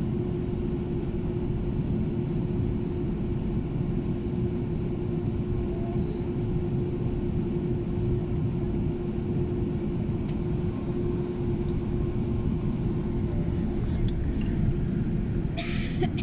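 Steady low rumble inside the cabin of an Airbus A380 moving slowly on the ground, with a constant mid-pitched hum over it. A brief hiss comes just before the end.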